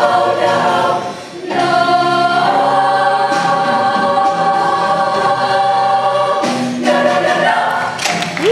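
Girls' vocal ensemble singing together in harmony, with a brief break about a second in, then a long held chord and a final phrase near the end.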